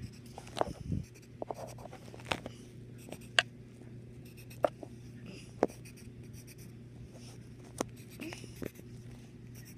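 Pencil drawing short strokes on paper: quiet scratching with a few sharp taps a second or so apart as the tip touches down, over a faint steady hum.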